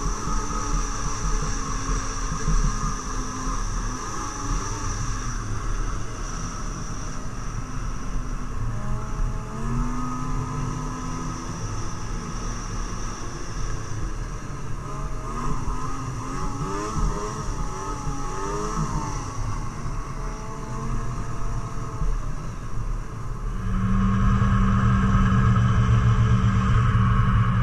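Yamaha snowmobile engine running under way, its pitch rising and falling with the throttle. Near the end the sound turns to a louder, steady hum.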